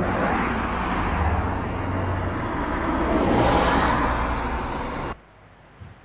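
Roadside traffic noise, with a car passing by that swells and peaks about three and a half seconds in; the sound cuts off suddenly about five seconds in.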